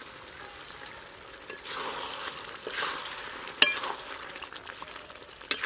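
Thick chicken curry bubbling and sizzling in a metal pot as a metal ladle stirs through it, with two sharp clinks of the ladle against the pot, about three and a half seconds in and near the end.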